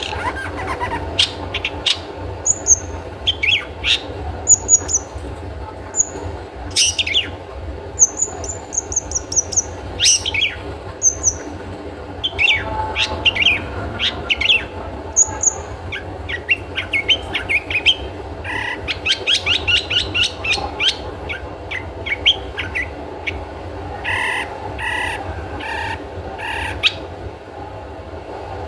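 Long-tailed shrike (cendet) calling: a busy run of short chirps, thin high notes and quick rattling series, the "toet toet" call used to lure and provoke other shrikes into song. A steady low hum runs underneath.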